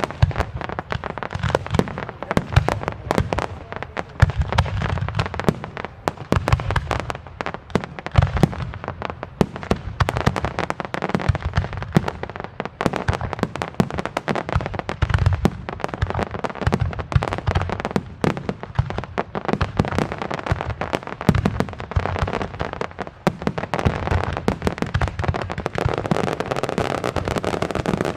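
Fireworks barrage of aerial shells and salutes: many rapid, overlapping bangs, deep booms mixed with sharp cracks, going on without a break.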